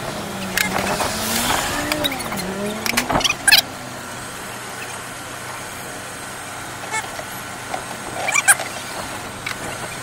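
A motor vehicle's engine runs in the street, its pitch rising and falling for the first three seconds, over a steady urban background hum. A few sharp clicks and knocks follow, one pair about three seconds in and another near the end.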